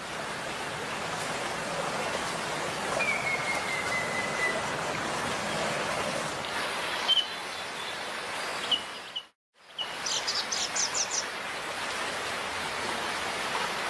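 Steady rush of a stream of running water, with birds calling over it: a long falling whistle about three seconds in, a few short chirps, and a quick run of high notes about ten seconds in. The sound drops out to silence for a moment just past nine seconds.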